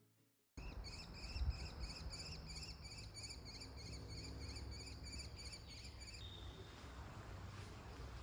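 Crickets chirping in a steady pulse, about three chirps a second, over a low rumble; the chirping cuts off abruptly about six seconds in, leaving a faint hiss and rumble.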